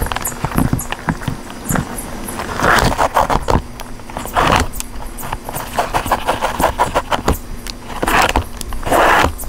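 Laces being pulled out of leather work boots through metal eyelets and hooks: light metallic clicks and ticks, with several longer rustling swishes as lengths of lace run through.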